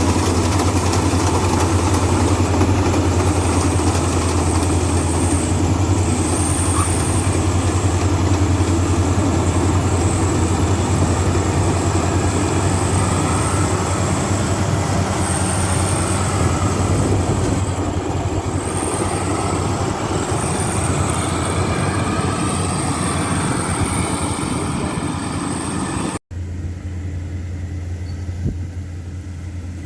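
Heavy machine engine running steadily with a deep hum. Near the end the sound cuts off abruptly and resumes quieter.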